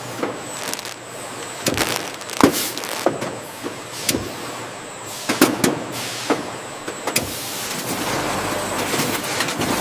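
Factory machinery running, with irregular clanks and knocks over a noisy mechanical background that becomes a steadier rumble about seven seconds in.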